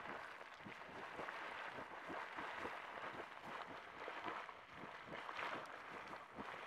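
Small geyser erupting in a continuous jet: a steady spray of water with many small splashes as it falls back around the vent.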